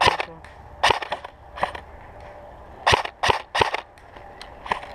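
Airsoft rifle firing single shots, about seven sharp cracks at irregular intervals, with fainter ticks between them.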